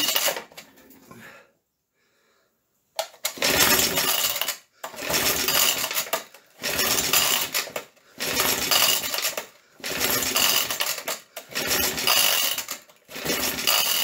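Recoil pull starter of a choked vintage Suffolk small engine yanked over and over, starting about three seconds in: seven rattling cranks roughly a second and a half apart. The engine turns over but does not catch.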